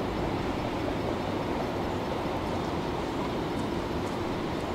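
A tram standing at a stop, running with a steady hum.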